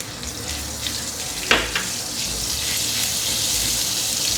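Minced chicken sizzling in hot oil with garlic, the sizzle growing louder as the meat fries. A single sharp clink comes about a second and a half in.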